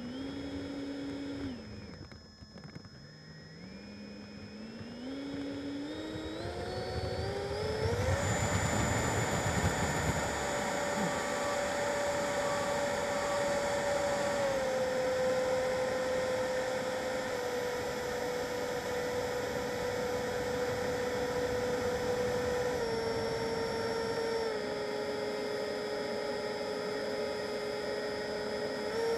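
Freewing F-22 RC jet's electric ducted fans heard from on board: the whine dips briefly, then climbs in steps as the throttle comes up for takeoff. There is a low rumble about eight to ten seconds in. After that it holds a steady high whine in flight, stepping down slightly a few times.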